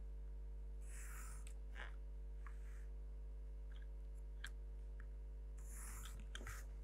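Faint pencil strokes on drawing paper and a plastic set square being shifted, with a few small clicks, over a steady low electrical hum.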